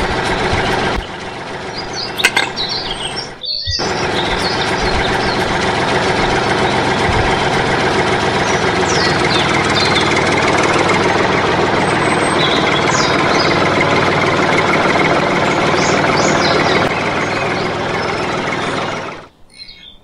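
Tractor engine sound running steadily, with birds chirping over it. It breaks off for an instant a few seconds in and cuts off suddenly near the end.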